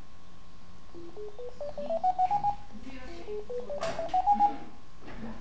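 Electronic beeps from the Physioscan scanning software during a scan: two runs of short tones, each stepping upward in pitch over about a second and a half.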